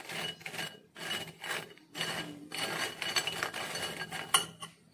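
Steel spoon stirring and scraping crisp fried poha kurkure sticks in a bowl, tossing them in spice powder. It makes a series of rasping, rustling strokes about twice a second, with a sharper knock near the end.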